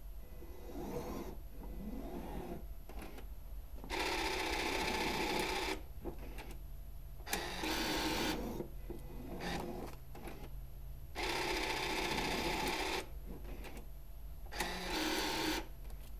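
NV200 banknote validator with smart payout running its note-transport motor in whirring bursts of one to two seconds, about four times, as it pays out $5 notes and takes a note in.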